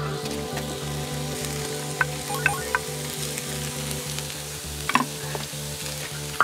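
Chopped scallions sizzling in hot oil in a large black wok, stirred with a wooden spatula that knocks and scrapes against the pan a few times: the scallions are frying to make scallion oil.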